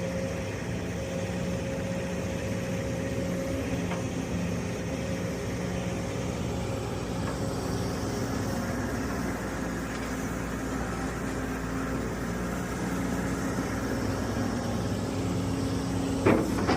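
An engine running steadily, a constant low hum with a few even pitched tones and no change in speed.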